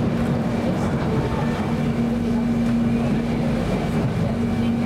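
Soekarno–Hatta Airport Rail Link electric train running at speed, heard from inside the carriage: a steady rumble of wheels on track under a steady low hum that drops out briefly twice.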